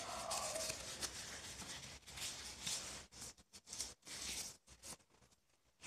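Rustling and stretching of a thin disposable glove being pulled onto a hand, a continuous scraping rustle that breaks into short separate bursts after about three seconds.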